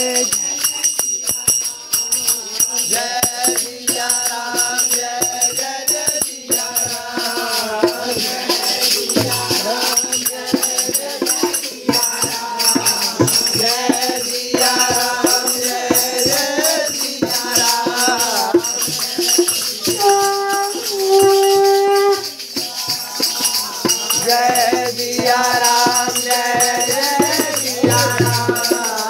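A group of men singing a Hindu devotional chant in unison, with steady jingling hand percussion shaken throughout.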